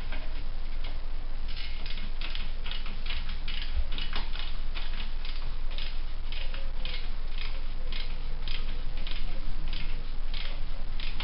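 Rhythmic rasping strokes, about two to three a second, from a hand tool being worked at the joint between a Softail's silencer and exhaust pipe, beginning about a second and a half in, over a steady low hum.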